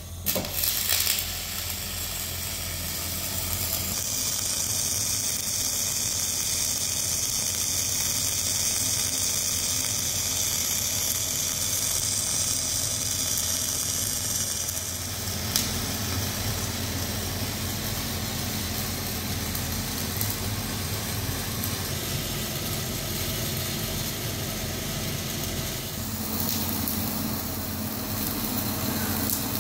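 Gas-shielded flux-cored (dual shield) MIG welding arc running continuously, a steady sizzling crackle as weld is laid in the joint between a hydraulic cylinder barrel and its head flange. The tone shifts about 4 seconds in and again about 15 seconds in.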